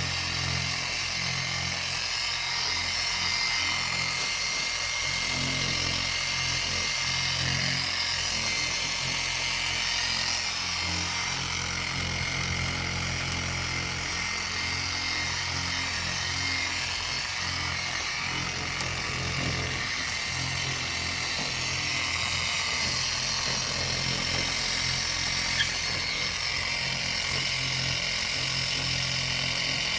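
Small orbital power sander running steadily at low speed, sanding a plastic headlight lens with a 1200-grit disc to strip the failed clear coat, a constant whirring hum with the hiss of abrasive on plastic.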